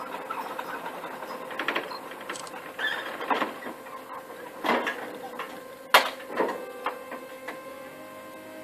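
Onyx-Elektra electric orchard work platform giving a steady hum, with metal clanks and knocks from the metal deck several times, the loudest about six seconds in.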